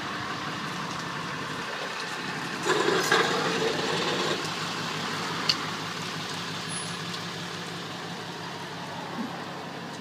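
Wheel-lift tow truck's engine running steadily while towing a car, with a louder rough burst a little under three seconds in that lasts about a second and a half, and a single sharp click a couple of seconds later.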